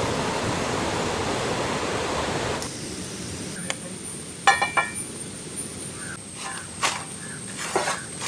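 A loud steady rushing noise that cuts off suddenly after about two and a half seconds. It gives way to sharp clicks and knocks and a ringing metal clink of cooking utensils over a faint steady high whine.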